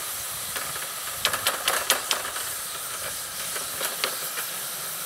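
Fire-heated rocks hissing and steaming in a plastic bucket of water, bringing it toward a boil in stone boiling. A run of sharp crackles and pops comes between one and two seconds in.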